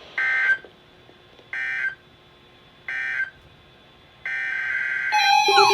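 EAS/SAME digital data tones from a NOAA Weather Radio broadcast: three short, evenly spaced warbling bursts, the end-of-message code that closes the warning. A longer burst follows about four seconds in, and near the end a loud electronic siren tone begins, wailing up and down.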